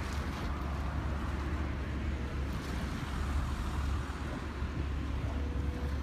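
Steady low rumble of outdoor background noise, like distant traffic or wind on the microphone, with a faint brief steady tone near the end.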